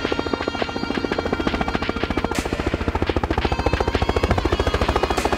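Light two-bladed helicopter flying low and approaching, its main rotor giving a fast, steady blade chop over the engine, growing louder toward the end.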